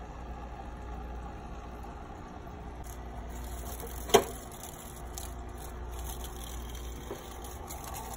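Aquarium filter running with a steady low hum, and a single sharp pop about four seconds in.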